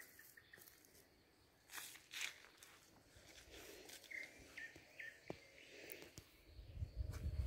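Faint outdoor yard ambience: a few short rustles about two seconds in, three brief high chirps a little after four seconds, and wind rumbling on the microphone near the end.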